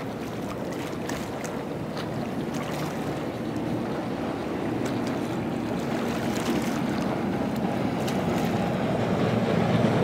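Twin outboard motors of a center-console boat running at speed, with the hull rushing through chop and spray; the sound grows steadily louder as the boat comes closer. Wind buffets the microphone.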